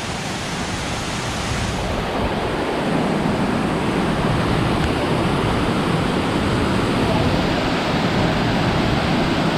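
Waterfall pouring over rock ledges into a pool: a loud, steady rush of water that grows a little louder over the first two seconds.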